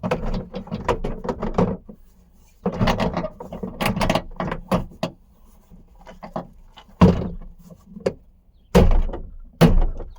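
Plastic hatch trim panel being lined up and knocked into place: runs of quick plastic clicks and rattles, then several sharp, louder knocks in the second half as its clip tabs are pushed home.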